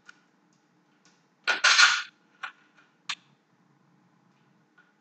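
Small metal hardware, washers, nuts and bolts, being handled. There is a quick clinking rattle about one and a half seconds in, with a few single clicks before and after it.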